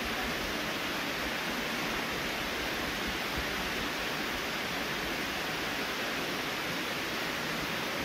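Steady rush of a shallow stream pouring over rocks, with the waterfall close by, an even unbroken sound of running water.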